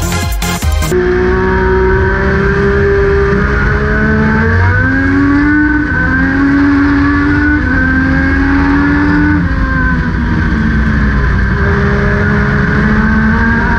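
Onboard sound of a Legend race car's Yamaha motorcycle engine running hard at racing speed, its pitch rising and easing as it accelerates and lifts. Electronic intro music cuts off about a second in.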